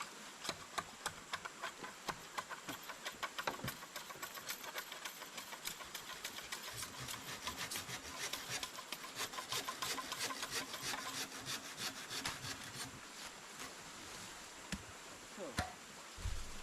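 Quick rasping strokes of a tool on wood, several a second, that stop about 13 seconds in.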